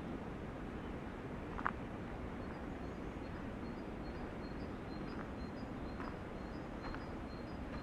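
Wind rushing steadily through the forest trees, with a bird singing a quick run of short, high repeated notes from about three seconds in. A few short cracks or knocks stand out, the sharpest about a second and a half in.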